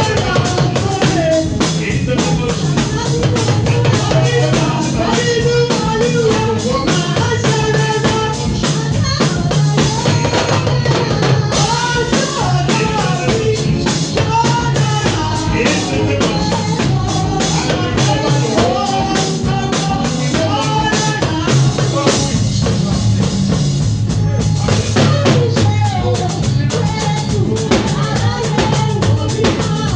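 Church band music with a drum kit and a steady bass line under a sung or played melody.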